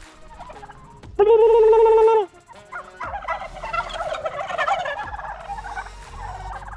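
A flock of domestic white turkeys gobbling, a rapid fluttering chorus from about three seconds in that carries on more quietly near the end. About a second in comes a single loud, steady call, held for about a second.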